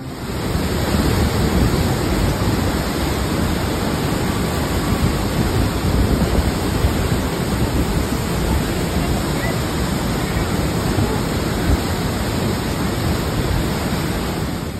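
Waterfall plunging into a churning pool: a loud, steady rush of falling water.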